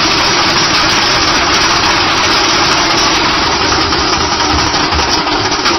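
A troupe of drummers beating hand-held frame drums with thin sticks: a loud, dense, fast stream of strokes that cuts off near the end.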